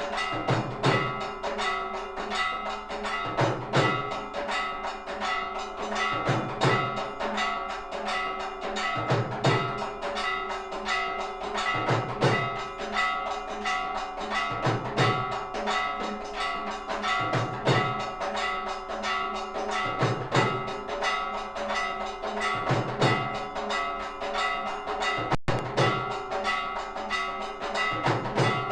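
Temple aarti bells clanging rapidly and continuously, their tones ringing on, with a deep drum stroke about every two and a half to three seconds.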